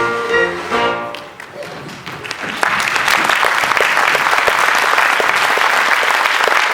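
Orchestral music with strings ends in the first second, then an audience breaks into applause about two and a half seconds in, clapping steadily.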